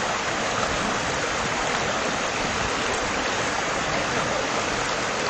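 A steady rushing noise with no clear engine note and no separate knocks.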